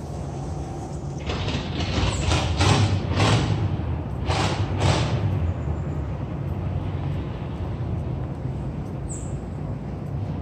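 Street traffic rumbling steadily, with a run of about six short hisses in the first half.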